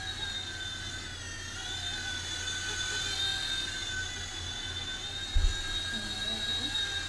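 RC helicopter's electric motor and rotor whining steadily in flight, the pitch wavering slightly up and down. A short dull thump about five seconds in.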